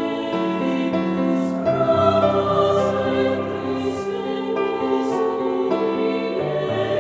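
Women's choir singing slow, sustained chords in several parts. A lower part enters about two seconds in.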